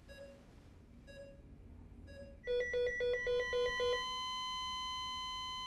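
Bedside patient monitor beeping faintly about once a second, then breaking into a rapid alarm beeping about two and a half seconds in, and from about four seconds in a single steady flatline tone: the patient's heart has stopped.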